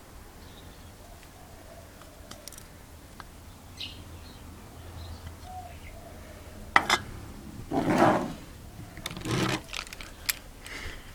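Airsoft Hi-Capa gas blowback pistol firing: a sharp crack about two-thirds of the way in, two longer, noisier sounds over the next few seconds, and another sharp crack near the end. Birds chirp faintly throughout.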